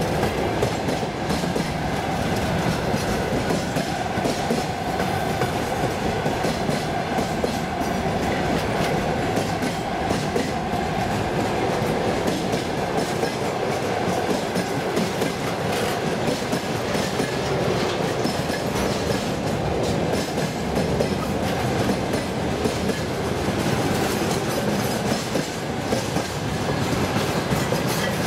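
Freight train wagons rolling past: covered wagons, then flatcars. It is a steady rumble with a fast, continuous clatter of wheels over rail joints, at an even level with no horn or braking.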